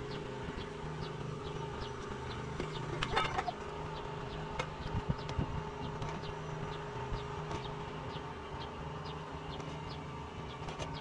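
Outdoor ambience: a steady droning hum under short high chirps that repeat about once or twice a second. There is a brief clatter about three seconds in.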